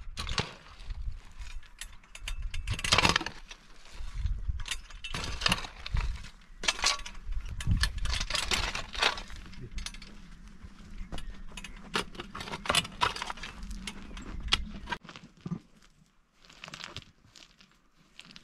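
Steel shovels scraping and chopping into dry, stony soil, with irregular clinks of stones and grit. About fifteen seconds in, the digging gives way to quieter, scattered clicks of small stones being picked up by hand.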